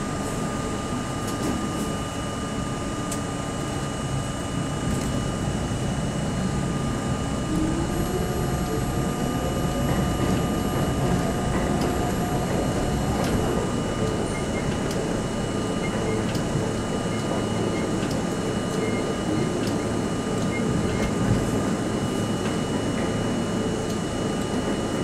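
New York City subway train (C line) running through the tunnel, heard from inside the front car: a steady rumble of wheels on rails, with a whine that rises in pitch about eight seconds in as the train picks up speed after leaving the station.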